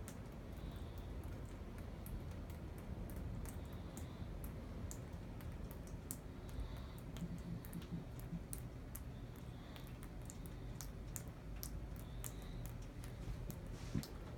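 Rainwater dripping from a leaking ceiling fan, the drops landing as many irregular small ticks over a steady low hum, with one louder tick near the end.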